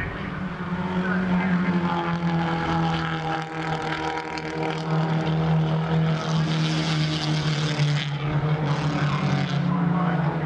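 Engines of a pack of Holden Gemini race cars running together at steady high revs, their overlapping engine notes held with only small changes in pitch. Two short bursts of hiss about six and nine seconds in.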